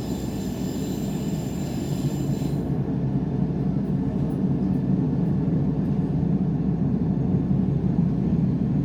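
Diesel railcar running along the line, heard from aboard: a steady low rumble that grows slightly louder. A thin high squeal dies away about two and a half seconds in.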